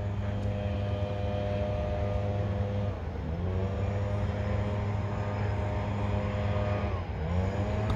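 An engine running steadily, its pitch dipping and climbing back up twice, as if shifting and picking up speed again.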